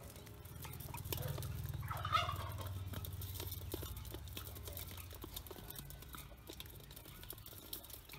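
Pekin ducklings scrabbling and pecking in a metal basin: many quick clicks and taps of bills and feet on the metal, with a louder bird call about two seconds in and a low hum underneath.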